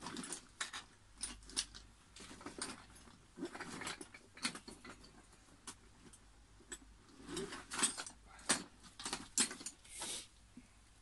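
Irregular clicks, light knocks and scraping rustles of hands handling things on a workbench, with a longer scrape about ten seconds in.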